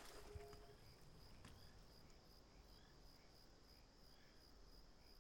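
Faint crickets chirping: a steady high trill with soft chirps repeating at an even pace.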